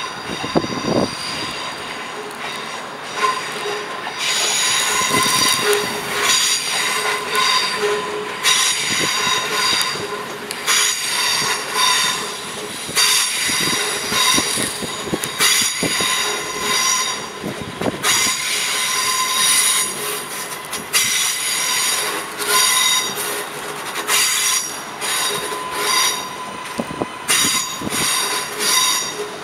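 Steel wheels of trains squealing as they run over curved track and points: a high-pitched screech in several tones that starts about four seconds in and keeps coming and going, over a running rumble with the knocking of wheels across rail joints.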